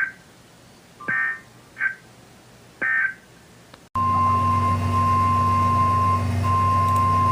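EAS/SAME end-of-message data bursts: a few short, buzzy digital squawks over the first three seconds. After an abrupt cut, the NOAA Weather Radio 1050 Hz warning alarm tone comes in as a steady single tone over radio hum, with one brief break.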